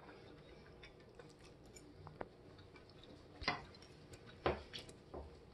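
Metal forks tapping and scraping on ceramic plates while cutting pancakes: a few light, scattered clicks, two of them sharper in the second half.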